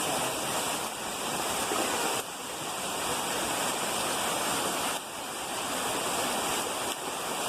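Floodwater rushing through a street as a torrent after heavy rain: a steady, dense rush of running water, dipping briefly about two and five seconds in.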